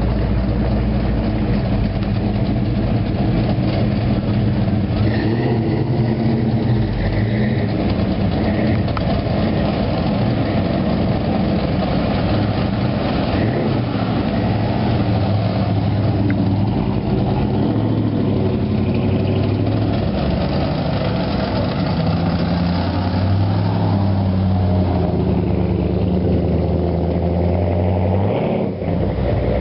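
Engines of classic hot rods and muscle cars running at low speed as they cruise past one after another, a steady low rumble whose pitch shifts as each car passes and picks up throttle.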